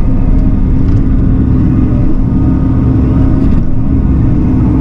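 Diesel engine of a Bobcat machine running steadily with a low, even rumble and a constant hum, heard from inside its closed cab.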